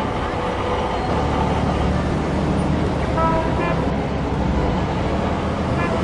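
Busy city street ambience: steady traffic noise with a murmur of voices, and short car horn toots a little past three seconds in.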